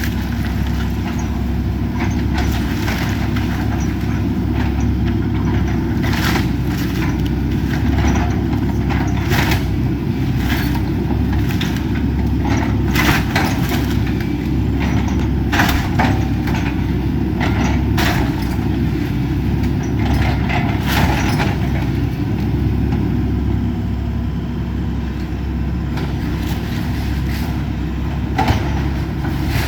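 An excavator demolishing a wood-frame house: a steady low engine hum under a run of sharp cracks, crunches and crashes as the structure is torn apart, with one last crack near the end.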